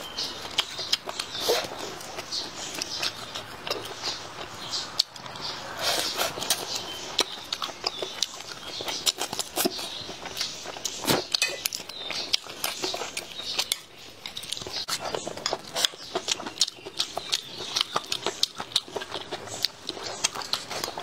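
Close-miked eating sounds: biting into and chewing pieces of chicken, with dense wet smacking and crackling mouth noises.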